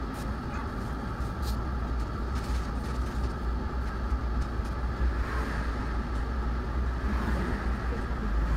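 Inside a city bus standing still in traffic: the engine idles with a steady low rumble, and oncoming cars pass by around the middle and near the end.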